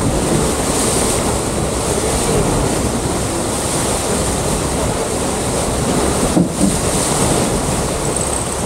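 Steady wind buffeting the microphone over the rushing of water along a sailing yacht's hull while under way.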